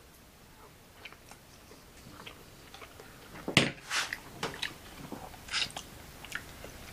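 A person eating a forkful of ravioli close to the microphone: quiet at first with a few faint clicks, then chewing and mouth noises from about halfway through, with a few sharper, louder ones.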